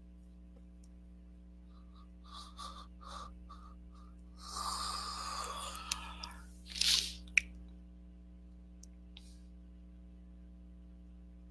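A woman breathing audibly: a few short soft sounds from her voice, then a long breath out through the mouth, then a sharper, louder breath and a brief click just after. A steady low mains hum runs underneath.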